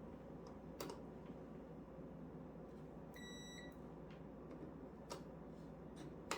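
Digital multimeter in continuity mode giving one short beep of about half a second, about three seconds in, while its probes test an air-conditioner contactor's contacts. A few faint clicks from probes on the terminals come before and after.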